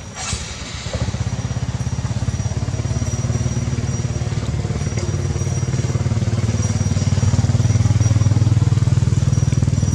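Motorcycle engine running at low revs, a fast low throb that sets in about a second in and grows louder over the next several seconds.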